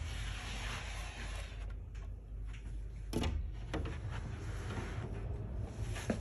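Quiet shuffling and rustling as someone moves through a doorway, with a door being handled and one sharp click about three seconds in.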